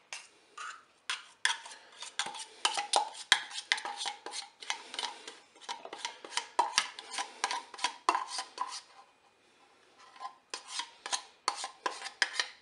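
Rapid, repeated clinking and scraping of a utensil against metal as sweetened condensed milk is emptied from its tin into the electric cooker's bowl. The strokes stop for about a second and a half near the nine-second mark, then start again.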